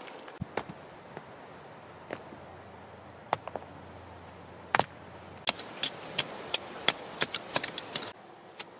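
A run of sharp knocks and clicks as lumps of clay soil are broken up and handled. A few come scattered at first, then many in quick succession over the last few seconds.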